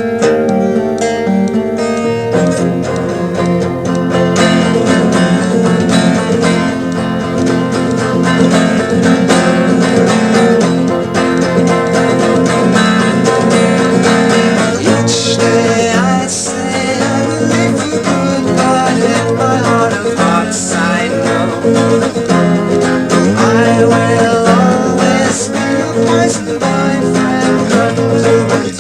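Red Baldwin 712 twelve-string semi-acoustic guitar played unamplified, strummed and picked through an instrumental passage of a song, recorded on a cassette tape recorder.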